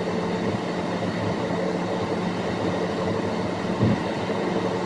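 Steady road and engine noise of a car cruising on the highway, heard from inside the cabin, with a constant low hum and a brief low thump about four seconds in.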